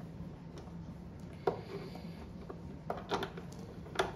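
A few sharp clicks and light knocks as a screwdriver turns a screw into the plastic casing of an overlock sewing machine. The loudest come about a second and a half in and just before the end.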